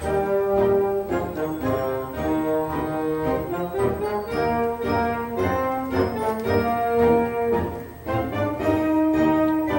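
Background orchestral music, a melody of held notes that change every half second to a second.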